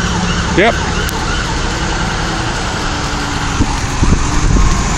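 Fire engines driving past, with their engine rumble and a siren sounding.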